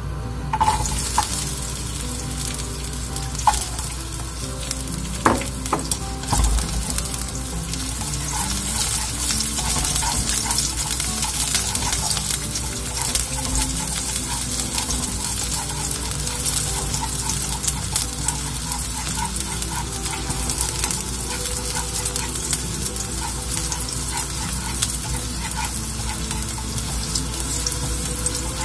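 Sliced garlic frying in oil in a nonstick wok: a steady sizzle that starts about half a second in, with light taps and scrapes of wooden chopsticks stirring the slices against the pan.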